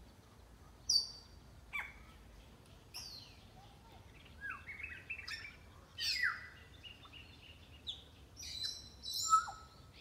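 Wild African grey parrots calling: a string of sharp whistles and downward-sliding calls, coming every second or so, loudest near the end.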